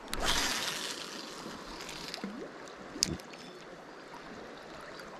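Shallow river running over gravel, with some wind on the microphone. A brief rush of noise in the first second fades out, and there is a single sharp click about three seconds in.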